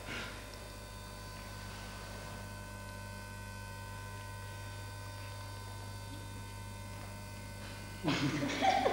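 Steady electrical mains hum with several faint, thin high whines over it. A short louder sound cuts in near the end.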